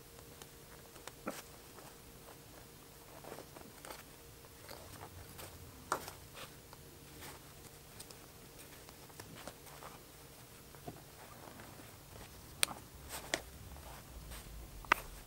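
Faint handling sounds of hand-sewing neoprene with a curved needle and small pliers: scattered small clicks and taps as the needle is gripped and pulled through, with a few sharper clicks near the end.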